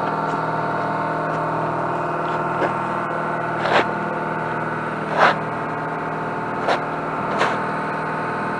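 A machine running steadily nearby: an even hum made of several steady pitches, with a few brief sharp sounds over it, the loudest about four and five seconds in.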